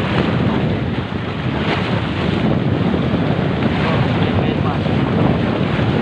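Wind buffeting the microphone: a steady, loud, rumbling noise with no clear pitch.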